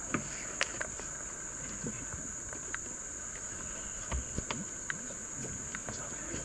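Steady high-pitched drone of rainforest insects, with scattered light taps and knocks from people moving on a wooden boardwalk.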